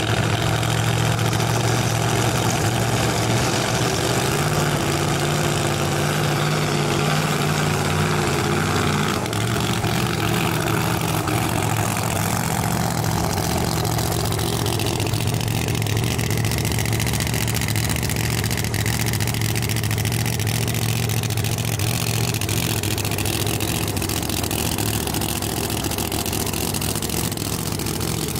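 A 1969 Camaro drag car's engine idling steadily as the car rolls slowly along the track, with a slight change in its note about a third of the way in.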